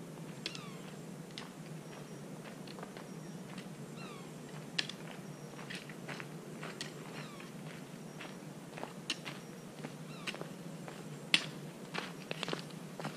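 A few faint animal calls, each a short note falling in pitch, mostly in the first half, over quiet background, with scattered sharp clicks; the loudest click comes near the end.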